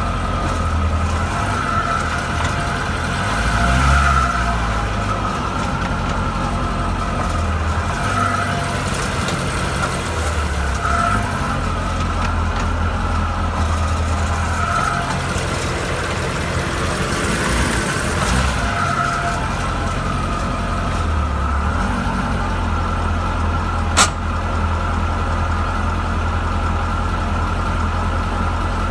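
2012 Corvette Grand Sport's 6.2-litre LS3 V8 running steadily, recorded for a ticking the owner hears while it is in gear. One sharp click stands out near the end.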